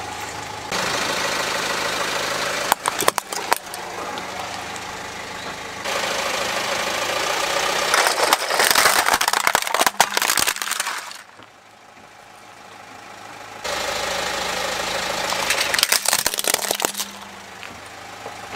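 Car engine idling as a tyre rolls over plastic toys, with bursts of sharp cracking and crunching as the plastic breaks, three times over; the sound changes abruptly between takes.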